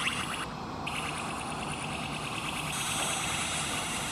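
Boeing 787-8 jet engines running at taxi power: a steady low rumble under a high turbine whine, the whine briefly dropping out about half a second in.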